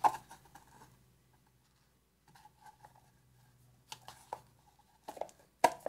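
Small clicks and taps of the diffuser's base cover being handled and fitted back onto the base, a few at the start, around four seconds in and a cluster near the end, with quiet between.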